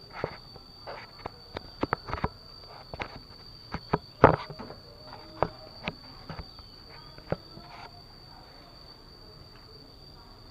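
Knocks and clatters of a heavy wooden door being handled as it is stood back up: a dozen or so sharp knocks over the first seven seconds, the loudest about four seconds in. Under them, a steady high-pitched insect drone runs throughout.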